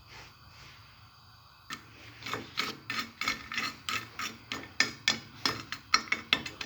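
Roasted date pits being stirred in a pan with a spoon: quick scraping, rattling strokes, about three a second, starting a couple of seconds in.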